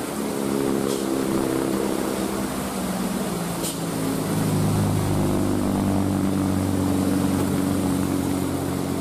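Vehicle engines passing on a wet road: an SUV goes by close at first, then from about four seconds in a Hino cargo truck's diesel engine runs with a steady low hum that lasts to the end.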